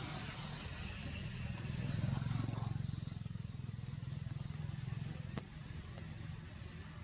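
A low, steady engine hum, like a vehicle idling, swelling briefly about two seconds in, over a steady hiss, with a single sharp click about five and a half seconds in.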